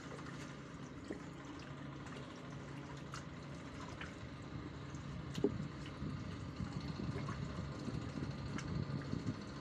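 Hands squeezing and turning chicken pieces in a soy-sauce marinade in a pot, with soft wet squelches and small scattered clicks and one sharper knock about five seconds in. A steady low hum runs underneath.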